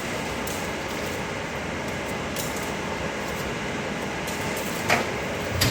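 A steady mechanical hum of background machinery, with two sharp metal knocks near the end as the steel cabinet's shelving is handled.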